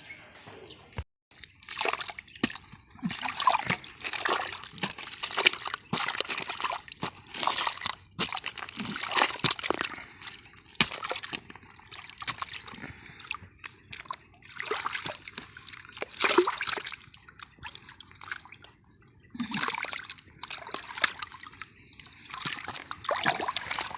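Hands sloshing and splashing in muddy water in a hole while groping for catfish, in irregular splashes every half second to a second. A steady high hiss cuts off about a second in.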